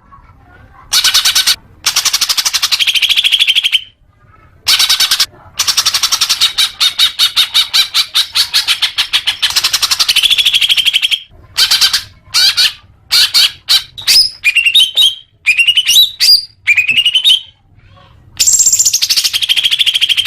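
Green leafbird (cucak hijau) singing: long, very fast chattering trills broken by short pauses. Past the middle come a string of short rising whistled notes, and another trill near the end.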